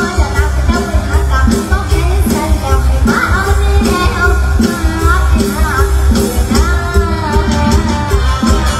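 Live Thai mor lam song played loud through a stage PA: a girl's voice singing into a microphone over a band with a heavy, steady bass beat.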